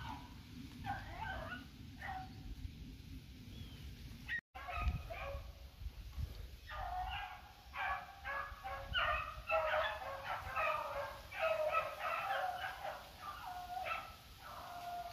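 A pack of beagles baying on a rabbit's trail, several hounds giving voice at once: the sign that they have struck the scent and are running the rabbit. The cries are sparse at first, then swell into a dense, overlapping chorus about halfway through before thinning again near the end.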